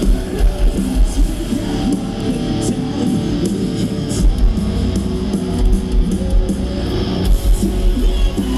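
Live rock band playing loud, with distorted electric guitars, bass and a heavy kick-drum beat, heard from the crowd. The sound grows fuller and brighter about seven seconds in.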